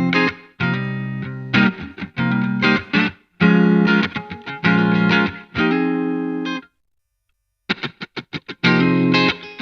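Telecaster-style electric guitar with Fleor Alnico V pickups, played through a Vox VT20X amplifier: chords strummed and let ring or cut short. About seven seconds in it stops for a moment, then comes a run of quick, short choked stabs before the chords come back.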